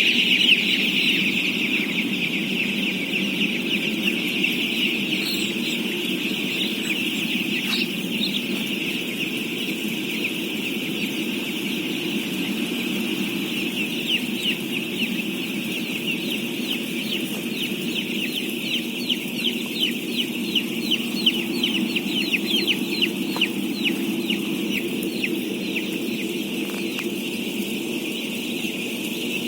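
Dense chorus of thousands of day-old chicks peeping at once: a continuous high chirping in which single sharp chirps stand out more clearly in the middle stretch, over a steady low background rumble.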